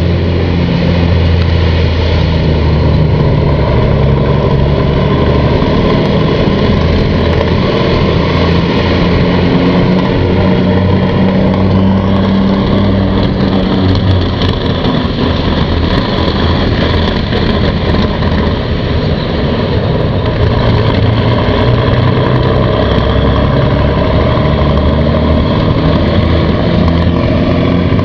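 Conqueror armoured vehicle's Rolls-Royce Meteor V12 petrol engine running steadily at a nearly constant pitch, with a low hum under a dense mechanical noise.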